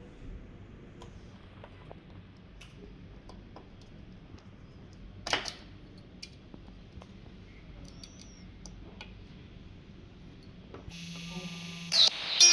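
Faint, scattered clicks and taps over quiet room tone, with one louder knock about five seconds in. Near the end a steady hum starts, and music cuts in just before the end.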